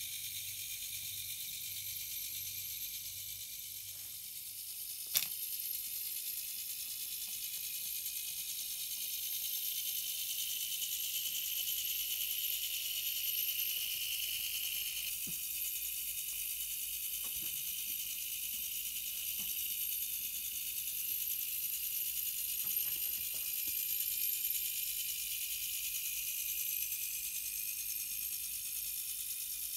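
The spring-driven Meccano clockwork motor of a 1930 tractor model is running, its gear train giving a steady high whirr. There is one sharp click about five seconds in and a few faint ticks later.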